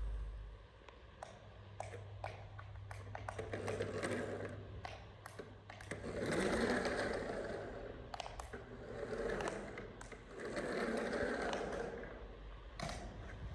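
Small electric motor of a toy RC vehicle whirring in four bursts, with plastic clicks and knocks between them.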